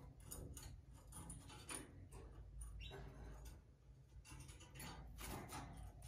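Faint, irregular light clicks and ticks, several a second, over a low steady hum.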